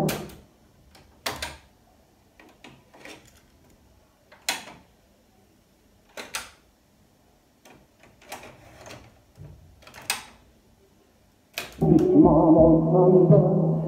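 Sharp GF-777Z double-cassette boombox: music from its speakers cuts off as a deck key is pressed, then a string of mechanical clicks and clunks from the piano-key transport controls and cassette door as a tape is taken out and another put in; music plays again about two seconds before the end.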